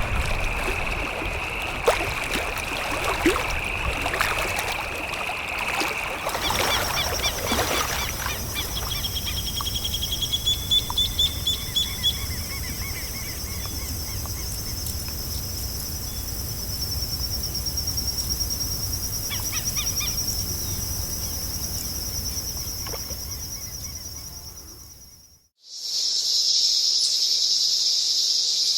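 Forest ambience of insects and birds: a steady high insect chirring with a short run of repeated bird calls partway through. The soundscape changes abruptly about six seconds in, and again after a brief fade to silence near the end, when a louder insect chorus takes over.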